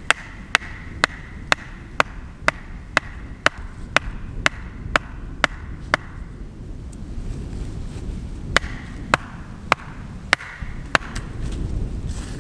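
A wooden stake being driven into the ground with the back of an axe head. There are steady knocks about two a second for six seconds, a short pause, then about six more blows. Wind rumbles on the microphone underneath.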